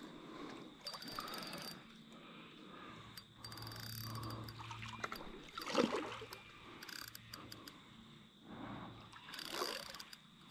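Hooked European carp splashing and swirling at the water's surface while being played, with one sharp splash a little past halfway as the loudest sound. Between splashes, fishing reel mechanism sounds and small clicks as line is worked in.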